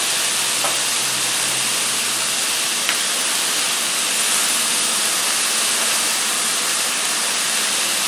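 Strips of summer squash sizzling steadily in olive oil in a frying pan, with a couple of faint light ticks.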